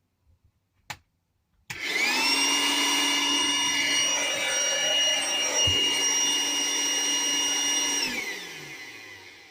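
Small 12-volt electric pump plugged into a newly wired 12 V socket, switched on about two seconds in with a quick rising whine, running steadily with a hum and a high whine, then switched off near the end and winding down in falling pitch. It running shows the new socket is live.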